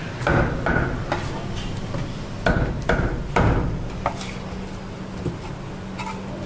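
A heavy steel cleaver chopping cobia fillets into pieces on a wooden chopping block: a run of about seven sharp chops in the first four seconds, then a few fainter knocks.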